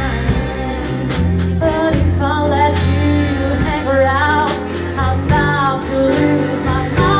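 Live band music: a singer with guitar, bass and drums, the voice coming in about two seconds in.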